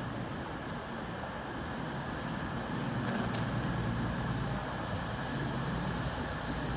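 A CrossCountry Voyager diesel multiple unit runs slowly into the platform, its engines and wheels making a steady low rumble that grows a little louder about two and a half seconds in. A couple of faint, short high squeaks come about three seconds in.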